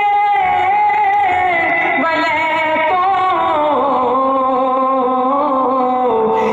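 A man sings devotional naat or durood into a handheld microphone without accompaniment. He holds one long, ornamented phrase whose melody steps slowly downward in pitch.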